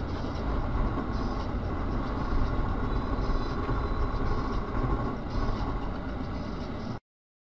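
Steady low rumble of road and engine noise from a moving vehicle, picked up by a dash camera; it cuts off suddenly about seven seconds in.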